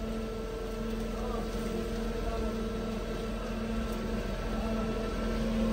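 Feed mixer-shredder running, its horizontal augers turning through hay, straw and grain: a steady machine hum that grows slightly louder toward the end.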